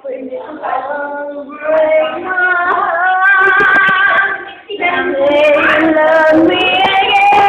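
A woman singing, holding long notes, with a short break about four and a half seconds in.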